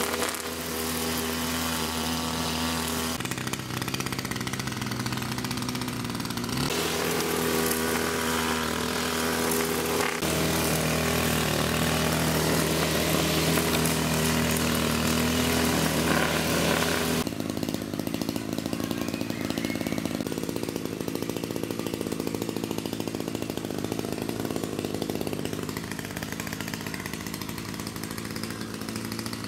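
A small engine-driven machine running steadily, like a power tool. Its pitch steps up and down a few times, and it drops in level a little past halfway through.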